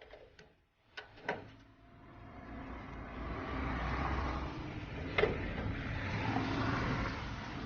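A few light knocks, then a steady, engine-like rumbling noise that swells in over a couple of seconds and holds, with a sharp metallic clank about five seconds in.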